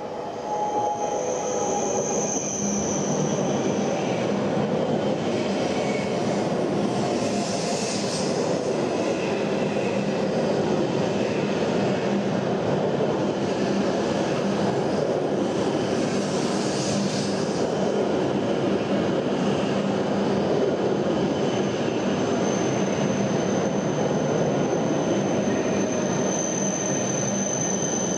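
W7 series Shinkansen train pulling slowly into the station close by, its wheels and running gear giving a steady rumble. A thin high squeal comes briefly a couple of seconds in and returns, growing, through the last third.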